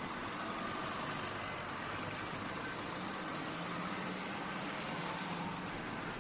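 Steady motorway traffic noise, an even hiss of tyres and engines, with a faint low engine hum about halfway through.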